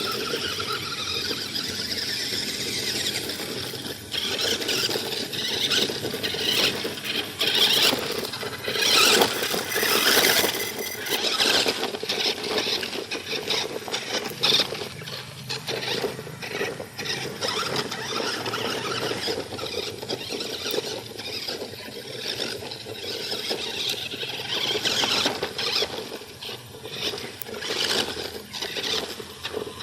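Toy RC rock crawler's small electric motor and gearbox whining high as it drives, with rough scraping and clattering. It grows louder for a few seconds about a third of the way in.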